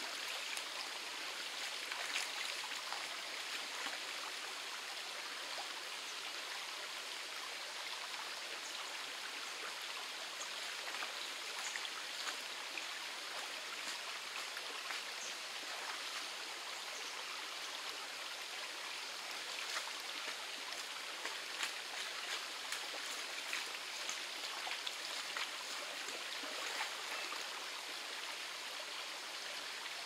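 Mountain stream flowing over rocks: a steady rush of water, with faint small splashes and trickles scattered through.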